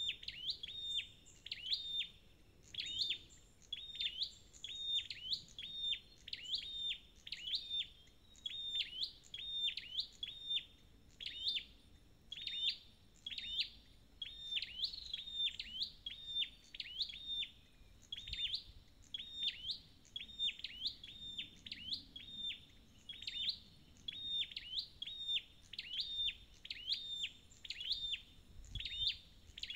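Scarlet-backed flowerpecker calling: a steady run of short, sharp, high chips, about one and a half a second.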